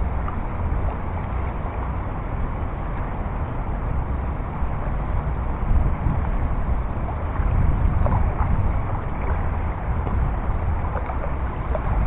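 Fast-flowing river water rushing steadily, with wind buffeting the microphone.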